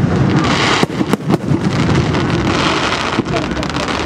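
Aerial fireworks display: a dense, continuous crackling hiss with several sharp bangs close together about a second in.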